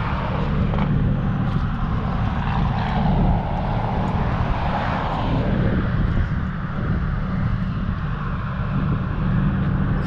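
Steady low rumble of a running vehicle with road or wind noise.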